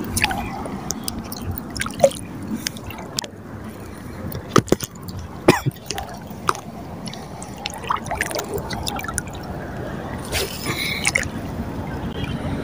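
Sea water lapping and dripping at the shoreline, with scattered small drips and pops and a few louder sharp splats, about two, five and six seconds in. A brief hiss about ten seconds in.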